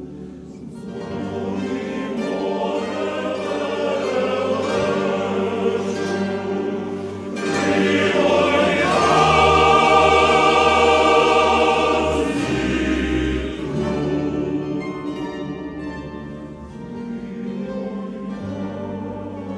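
A choir singing slow, sustained chords, growing louder about a third of the way in and easing off after the middle.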